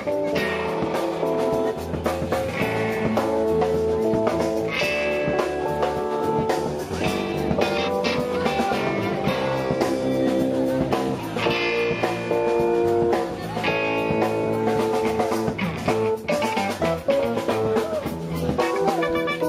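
Funk band playing an instrumental groove: electric guitar and bass over a steady drum-kit beat.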